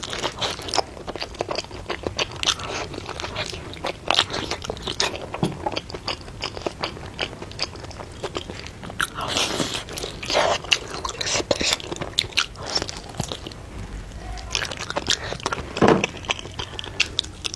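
Close-miked mukbang eating: a person biting and chewing crunchy food, with many irregular crisp crunches and clicks, louder bites about ten seconds in and again near the end.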